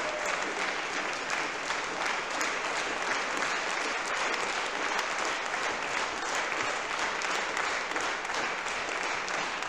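Audience applauding steadily in a hall, a dense patter of many hands clapping.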